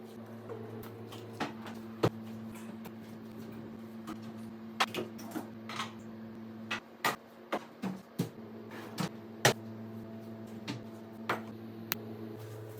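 Scattered light clicks and knocks of kitchen items being handled, over a steady low hum that drops out for a moment in the middle and stops near the end.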